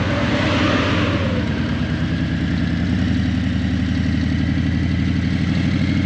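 Harley-Davidson Breakout 117's Milwaukee-Eight 117 V-twin running at a steady pace through Vance & Hines Eliminator 300 slip-on mufflers, a constant low throb. A brief rush of noise is heard in the first second.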